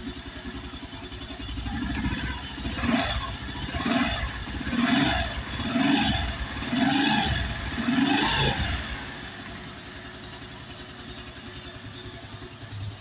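Honda Biz 110i single-cylinder four-stroke motorcycle engine idling, with the throttle blipped about six times in quick succession, roughly once a second, before it settles back to a steady idle. It runs evenly with a normal, factory-like sound and holds its idle, now that the worn camshaft bearing behind the loud knocking has been replaced and carbon-fouled valves cleaned and lapped.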